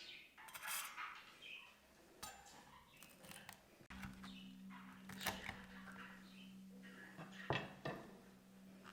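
Kitchen clatter: dishes and utensils clinking and knocking in short scattered strikes. A steady low hum starts about four seconds in.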